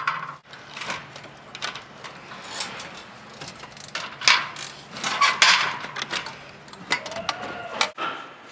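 Hands handling a power harness in flexible metal conduit and fitting it to a plastic power module in an office panel's base raceway: irregular clicks, light metallic clatter and rattling, busiest about four to five and a half seconds in.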